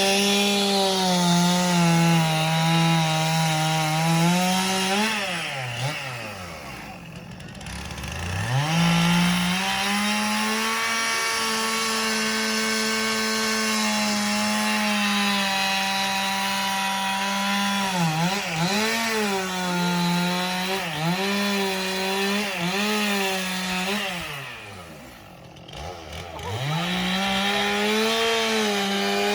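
Two-stroke chainsaw carving wood at full throttle, its high engine note wavering and dipping as the chain bites. It falls back to idle twice, about six seconds in and again near twenty-five seconds, and revs back up each time.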